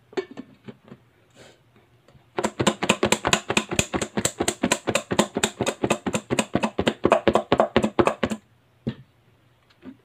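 Plastic cling wrap being pulled and stretched off its roll to cover a bowl: a fast, even crackle of about six ticks a second that runs for some six seconds, after a few light crinkles.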